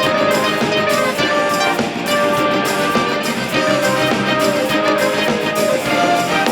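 Orchestral music with brass instruments prominent, playing steadily with a regular beat.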